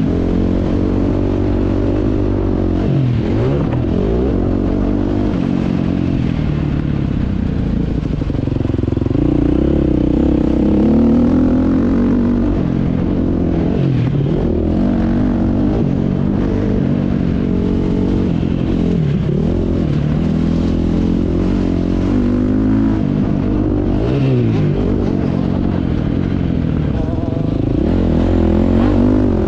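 KTM 250 SX two-stroke motocross engine revving hard, the revs dropping and climbing again every few seconds as the throttle is rolled off and opened through gears and turns.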